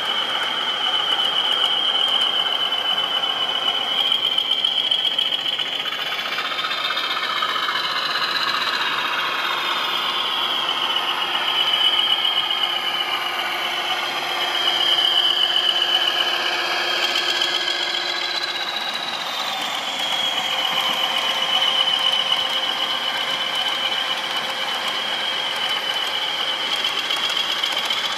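OO gauge model train running along the track: a steady high-pitched whine that wavers and glides up and down in pitch, with fainter shifting tones beneath it.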